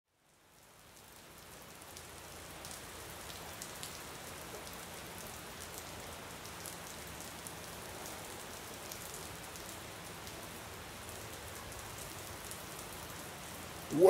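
Rain falling: a steady hiss sprinkled with small drop ticks, fading in over the first couple of seconds.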